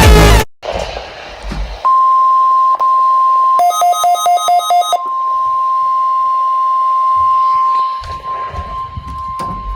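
Electronic music cuts off right at the start. About two seconds in, a NOAA Weather Radio warning alarm tone begins: one steady high tone held for several seconds, sounded as a weekly test of the weather radio alert signal. A quick run of about seven short two-pitch beeps sounds over it soon after it starts.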